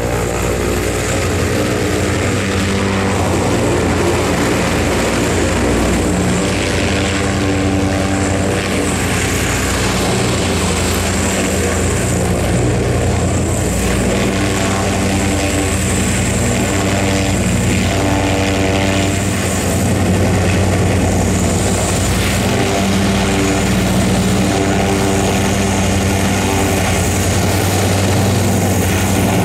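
Zeppelin NT airship's piston engines and propellers running steadily, the pitch of the engines shifting up and down in small steps.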